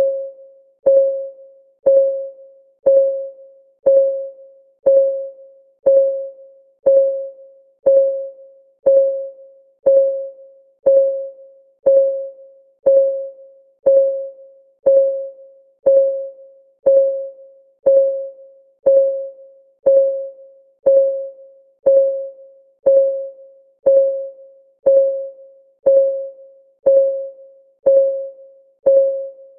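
Countdown timer's clock-ticking sound: one short pitched tick every second, each ringing briefly and dying away, at an even, unchanging pace.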